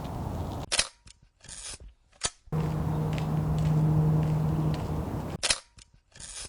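35mm film camera shutter clicking twice, about five seconds apart, each sharp click followed by a few shorter clicks of the film advancing. A steady low hum in the background between them.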